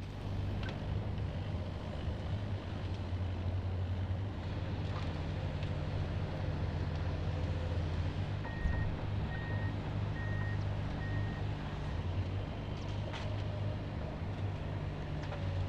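Heavy vehicle engine running steadily with a low hum, with four short reversing beeps about halfway through and a few scattered knocks.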